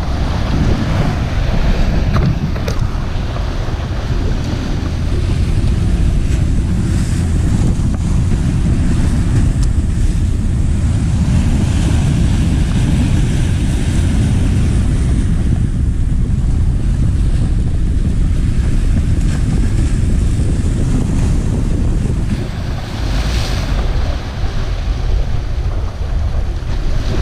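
Strong wind buffeting the microphone over sea waves washing and breaking against breakwater rocks, the surf swelling every few seconds.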